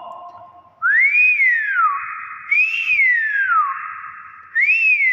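Nias hill myna whistling three times, each note swooping up then sliding down.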